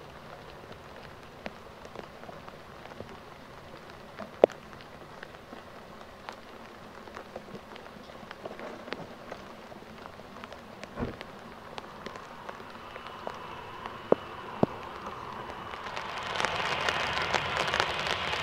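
Rain falling, with scattered drops ticking sharply close by. Near the end the whine and rush of the Boeing 737-800's jet engines rise over the rain.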